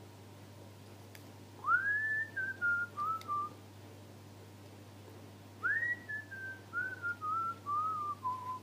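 A person whistling a tune in two short phrases. Each phrase opens with an upward swoop, then steps down through several short notes.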